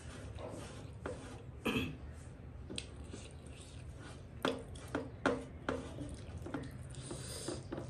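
Fingers mixing rice and chicken curry on a steel plate: wet squishing with short sharp clicks against the metal, a quick run of them about halfway through.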